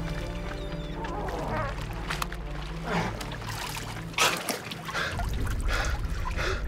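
Film soundtrack: a sustained low score under effects of a fishing catch on a boat, with short calls that rise and fall in pitch and a sharp knock or splash about four seconds in, after which a low rumble grows stronger.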